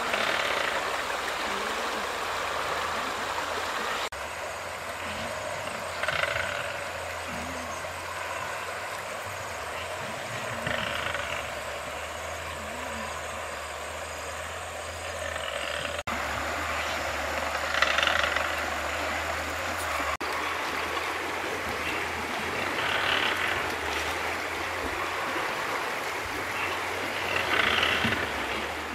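Steady rush of running water with a low hum underneath, and short louder bursts every few seconds.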